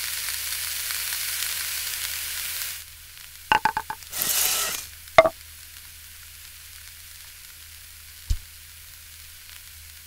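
Food sizzling on a hot griddle plate for about three seconds, then cutting off. A quick cluster of clicks, a short hiss and a single sharp clink follow, and a soft low thud comes near the end.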